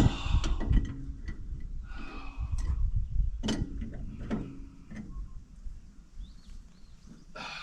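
Scattered light metallic clicks and knocks of hand tools on an excavator's hydraulic fitting, reassembled with a new O-ring. The clicks come irregularly and fade toward the end.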